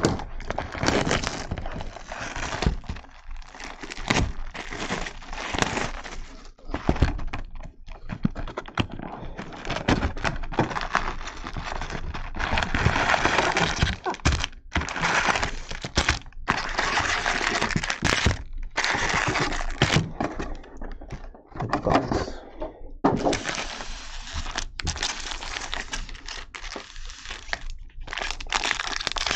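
Cardboard trading-card box being torn open and its foil-wrapped packs handled and set down on a table: tearing cardboard, crinkling foil wrappers and many knocks and clicks.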